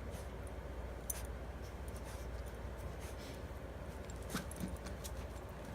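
A dog moving about and fussing with a treat: a few faint clicks and rustles over a steady low hum.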